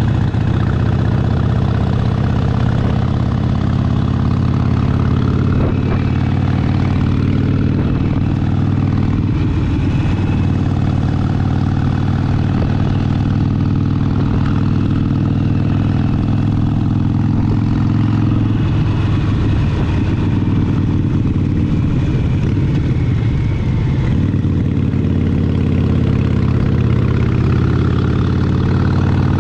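Harley-Davidson Sportster Seventy-Two's air-cooled 1200 cc V-twin engine running at a steady, nearly unchanging pitch, with no clear revving up or down.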